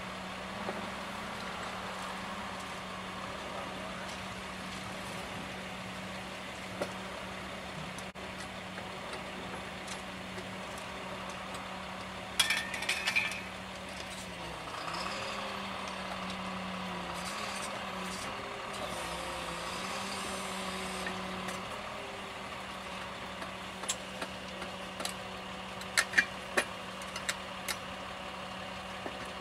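Small engine running steadily to drive a hydraulic rail weld shear, its pitch dipping and wavering for several seconds midway as the shear pinches off the excess metal of a fresh thermite rail weld. Sharp metal clanks come a few seconds before that and in a cluster near the end.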